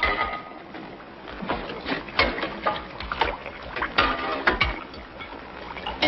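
Kitchen clatter: pots, pans and dishes knocking and clinking, several sharp clanks with a short metallic ring, as a cook works quickly between the stove and the table.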